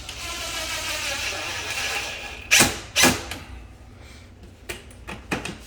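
Power drill driving a screw into a pre-drilled pilot hole, its motor running steadily for about two seconds, then two sharp clacks about half a second apart and a few light clicks.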